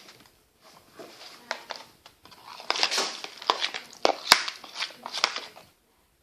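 Sticky homemade slime being squeezed and mixed by hand: a run of irregular wet clicks and crackles, densest and loudest in the middle, with one sharp snap about four seconds in, stopping shortly before the end.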